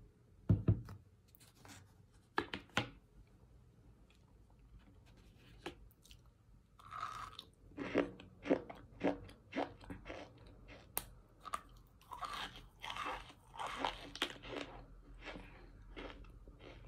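Biting and crunchy chewing of compacted cornstarch chunks dusted with baby powder. A low thump comes about half a second in, then a few crisp crunches near three seconds. From about seven seconds on, steady chewing crunches come roughly twice a second.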